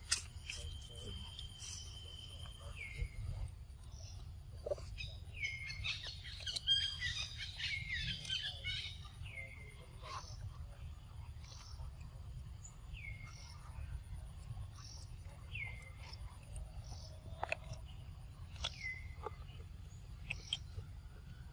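Birds calling: a short call that slides down in pitch repeats every couple of seconds, with a burst of busier chirping about six to nine seconds in, over a steady low outdoor rumble.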